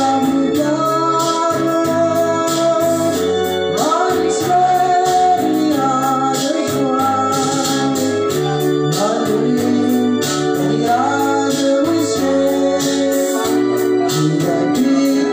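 A song sung over keyboard or organ backing with a steady beat, the voice holding long notes and sliding between them.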